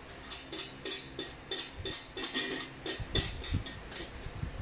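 Loosely bolted steel cookstove panels clinking and rattling against each other as the assembly is rocked forward. A quick, uneven run of sharp metallic clicks, with a few dull thumps in the second half as it shifts on the bench.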